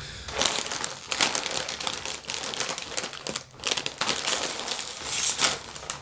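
Plastic chip bag crinkling loudly and unevenly as it is handled and pulled open by hand.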